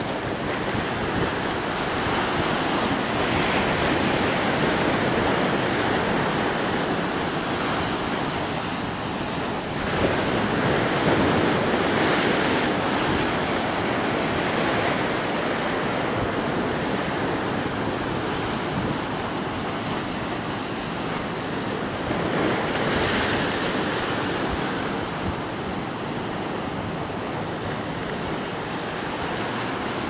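Caribbean Sea surf breaking on shoreline rocks and a seawall: a continuous wash of waves that swells louder several times, most sharply about ten seconds in.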